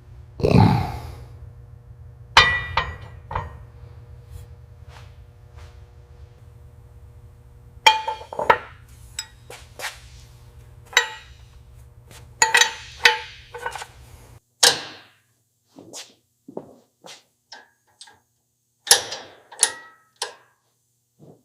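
Irregular workshop knocks and clinks of tools on parts, some ringing briefly. A steady low hum lies under the first two-thirds and cuts off suddenly, after which the knocks continue alone.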